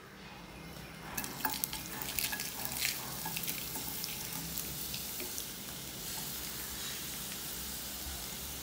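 Food sizzling in hot oil in a cooking pan. A spoon clicks and scrapes against the pan for a couple of seconds about a second in, then the sizzle goes on steadily.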